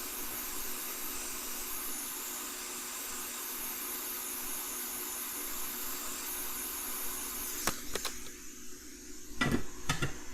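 Steady rushing hiss of air from a hot air rework station blowing, which cuts off with a click about three-quarters of the way through, followed by a few small knocks and clicks.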